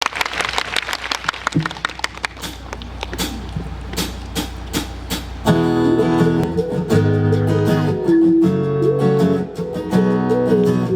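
Scattered sharp claps, dense at first and thinning out, over a low steady hum. About five and a half seconds in, a guitar starts playing the song's intro through the sound system, with plucked chords and a picked melody.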